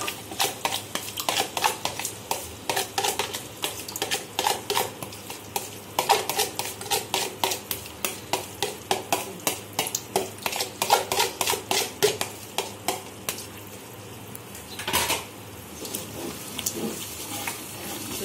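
A spatula knocking and scraping against a cooking pot in quick repeated strokes, about two or three a second, as an onion-and-spice masala with yogurt is stirred and fried down, with light sizzling underneath. The strokes pause briefly near the end, followed by one louder clatter.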